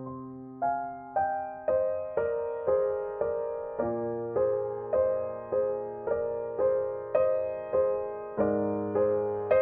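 Background music: a gentle piano figure with evenly paced notes, about two a second, each fading away, over chords that shift about four seconds in and again near the end.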